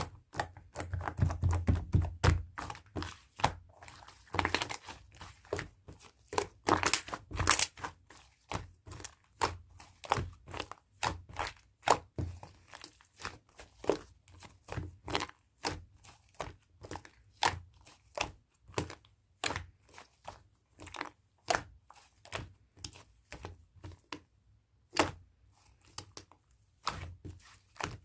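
Fluffy slime being squeezed and pressed by hand, making a string of irregular sticky clicks and pops, thickest and with soft thuds in the first couple of seconds.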